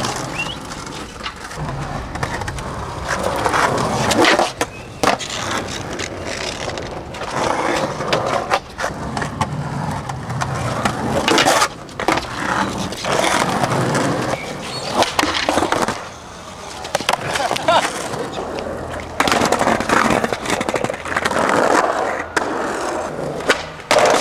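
Skateboards rolling on asphalt and concrete paving, with repeated sharp clacks of tails popping and boards landing.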